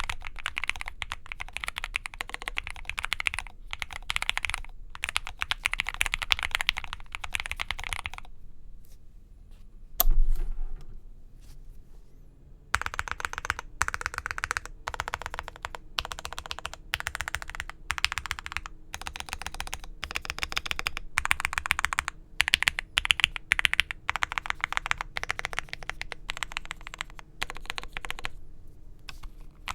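Typing on an Owlab Spring mechanical keyboard with lubed Gateron Oil King linear switches on a POM plate, foam-filled, with Novelkeys Cherry-profile keycaps: steady runs of keystrokes. The typing stops about eight seconds in, a single loud low thump comes about two seconds later, and the typing resumes after about four more seconds.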